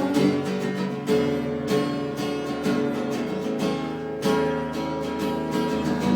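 Acoustic guitar strumming chords in an instrumental break between sung lines of a live song.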